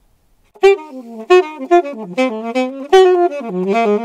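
Alto saxophone, an old 1950s horn, playing a quick jazz phrase of moving notes beginning about half a second in. Several notes jump out in sudden swells, air pushes given from the diaphragm without the tongue, which act like a very fast crescendo.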